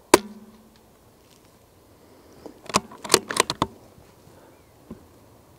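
A single shot from a Bergara B14 HMR bolt-action .22LR rifle, a sharp crack with a short ringing tail. About two and a half seconds later comes a quick run of clicks as the bolt is worked to eject the case and chamber the next round.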